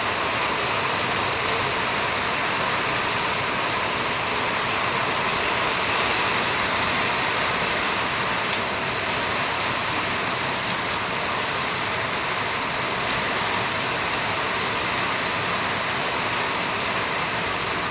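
Steady rain falling: an even hiss with faint tapping of drops, holding level throughout.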